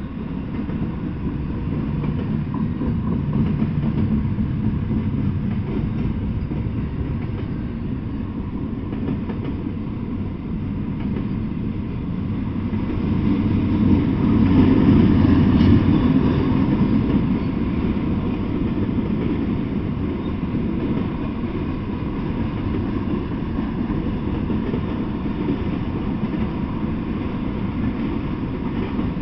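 Intermodal freight train rolling past, its wheels running steadily on the rails, growing louder a little before halfway through and then easing back.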